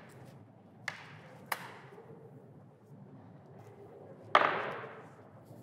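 Hand-held rubber stamp knocked down onto paper on a wooden desk with one sharp thump near the end, marking a ballot paper. Before it come two light taps about a second and a second and a half in, and faint paper handling.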